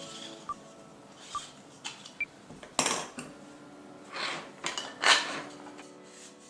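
Light clicks and knocks of a plastic lamp socket and its screw ring being handled and fitted into a thin metal wire lampshade frame, a few small ticks first and the loudest knock about five seconds in.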